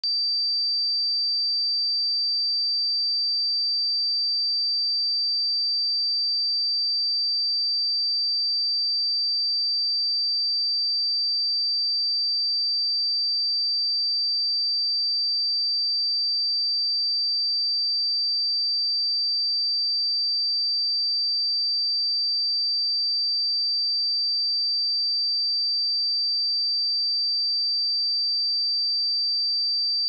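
A pure 4662 Hz sine-wave test tone, a single high-pitched steady tone held without change.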